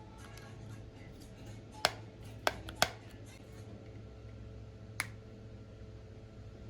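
Four sharp, short clicks over a steady low hum: three close together about two seconds in, and a fourth a few seconds later.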